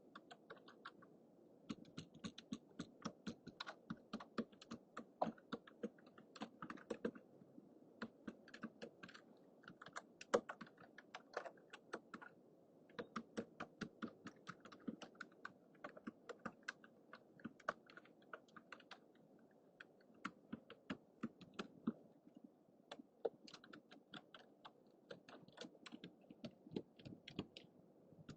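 Typing on a computer keyboard: quick runs of key clicks with short pauses between bursts, over a faint steady hiss.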